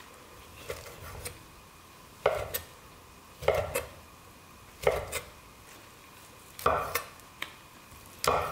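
Chef's knife slicing boiled pork offal on a wooden cutting board. Each cut ends in a knock of the blade on the board, about every second, some in quick pairs.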